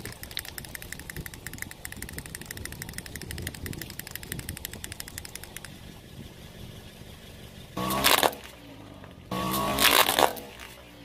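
Wind-up toy chick's clockwork motor clicking rapidly and evenly as it walks, stopping after about six seconds. Then a car engine revs loudly twice, about eight and ten seconds in, as the car rolls forward over the toy.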